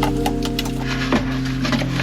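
Background music with held notes that change pitch, and scattered sharp clicks.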